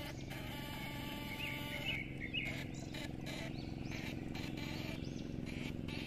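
A steady low mechanical hum with evenly spaced overtones runs throughout. Short bird chirps sound over it, a cluster about one and a half to two and a half seconds in and more near the end.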